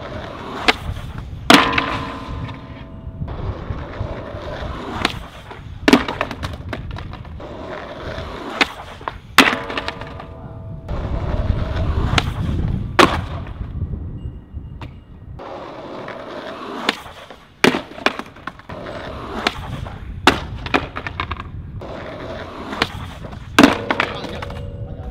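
Skateboard wheels rolling on concrete, broken by repeated sharp pops and board impacts from attempts at a stair handrail. Three of the hardest strikes are followed by a short ringing of several tones: the first a second and a half in, one about ten seconds in and one near the end.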